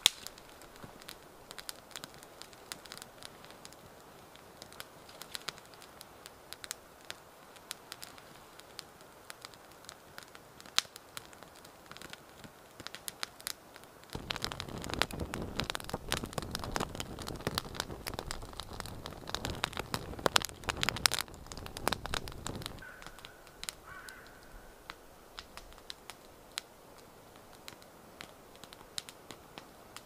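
Small campfire of dry sticks crackling, with scattered sharp pops and snaps. It is louder and denser for about eight seconds in the middle, over a fuller rush of flame.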